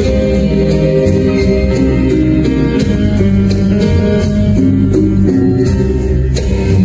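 Rumba dance music with a steady beat.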